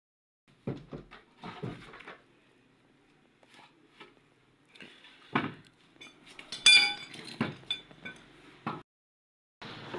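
Scattered knocks and metallic clinks as tools and workpieces are handled on a workshop bench, with one louder ringing clink just before the seven-second mark.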